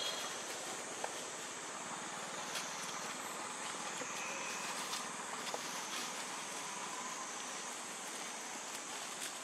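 Steady faint outdoor background noise, an even hiss with a thin high-pitched drone over it and a few small ticks.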